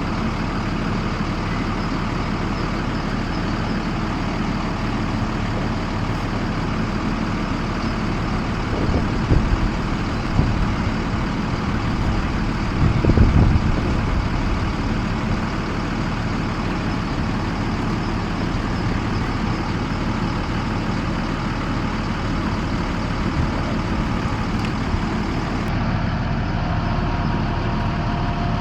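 School bus engine idling steadily, with a few brief louder low surges in the middle.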